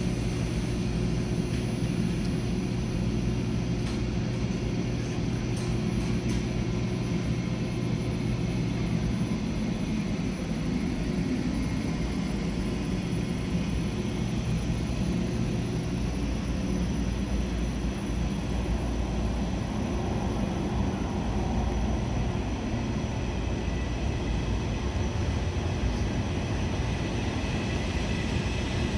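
KTX high-speed electric train pulling out of the platform and gathering speed: a steady drone of traction equipment and cooling fans with a low hum, and wheel and rail noise growing toward the end.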